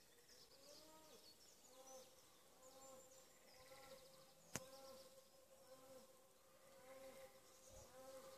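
Faint outdoor ambience: a steady insect buzz with high chirps and twittering, and a single sharp click about four and a half seconds in.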